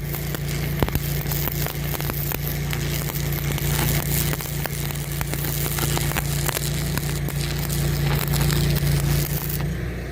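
Electric arc welding on a bulldozer blade's steel reinforcement plate: a steady crackling, sizzling arc with sharp pops, over the hum of the generator powering the welder. The arc stops near the end, leaving the generator hum.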